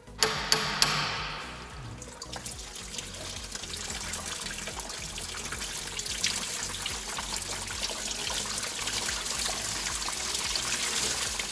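Red antifreeze coolant pouring and trickling out of an Opel Astra G engine as its water pump is pulled off, a steady splashing hiss that cuts off at the end. A few sharp clicks sound in the first second.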